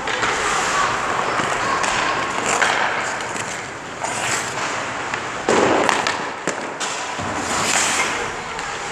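Hockey stick shooting a puck with a sharp crack about five and a half seconds in, followed by a few knocks of puck and goalie pads, over the scrape of skate blades on the ice. Near the end comes a brief hiss of skates spraying ice.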